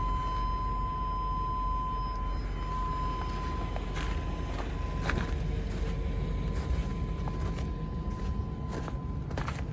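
Footsteps crunching on snow, a few sharp steps from about the middle on, over a steady low rumble. A steady high tone fades out in the first few seconds.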